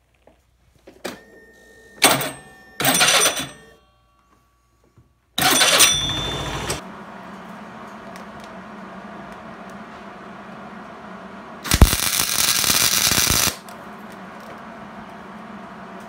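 Electric arc welder laying short tack welds, the arc crackling in five separate bursts of up to about two seconds each, with a steady low hum between the later ones. The welds fix a starter gear onto a scooter crankshaft whose splines are stripped, a budget repair in place of a new crankshaft.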